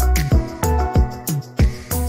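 Background music with a steady beat: a deep kick drum about three times a second, each hit sliding down in pitch, under held keyboard-like notes.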